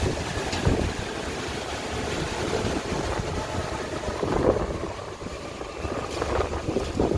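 Hurricane-force wind buffeting the microphone, a rough, uneven rumble that swells and eases in gusts.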